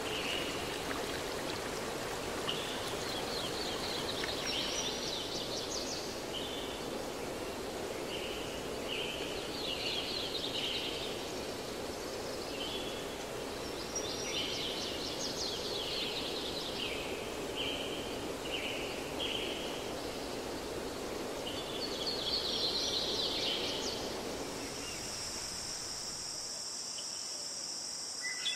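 Outdoor nature-style ambience: a steady rushing noise with repeated short high chirping calls. About 25 seconds in, the chirps give way to a steady high-pitched trill.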